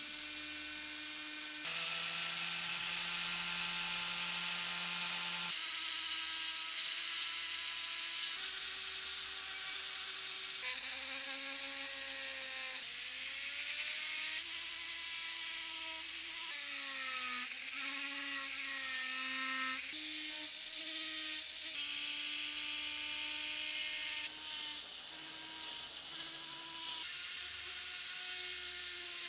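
High-speed handheld rotary tool whining as small cutting discs and a wire wheel grind the rusty steel parts of an old boxlock pistol, with a hiss of grinding. The pitch sags and recovers as the disc bears on the metal, and jumps abruptly several times.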